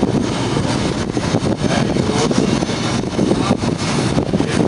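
Heritage railway passenger carriages rolling past along the platform: a steady rumble of wheels on rail broken by irregular knocks from the wheels and couplings.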